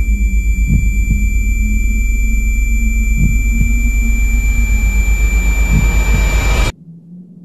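Loud, steady low rumbling drone with a steady high ringing tone over it, a dramatic sound effect. It cuts off suddenly near the end.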